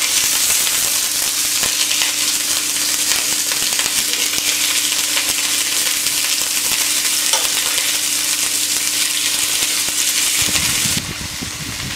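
Pork fillet rolls searing in hot oil in a stainless steel frying pan, sizzling steadily as they are turned. The sizzling cuts off about a second before the end.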